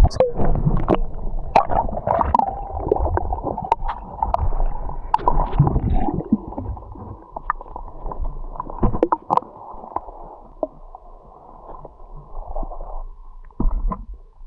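Water heard from underwater, muffled, with bubbling and gurgling, scattered sharp clicks, and a louder knock near the end.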